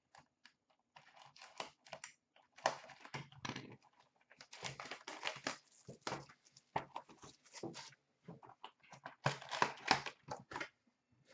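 A cardboard hobby box of Upper Deck SP Authentic hockey cards being torn open by hand and its packs pulled out: a run of irregular tearing, rustling and scraping noises that come in bunches.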